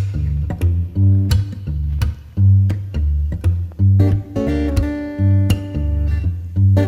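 Background music led by guitar, with deep bass notes changing under it and a steady beat of sharp ticks a little faster than once a second.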